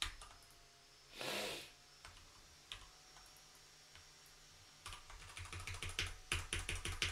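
Typing on a computer keyboard: a few scattered keystrokes, then a rapid run of clattering keystrokes from about five seconds in. A brief hiss of noise a little over a second in.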